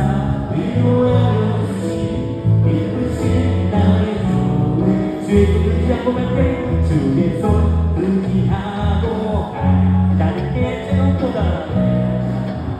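Live worship band playing a gospel hymn: electric guitar, electric bass holding long low notes, drums with cymbals, and keyboard, at a steady tempo.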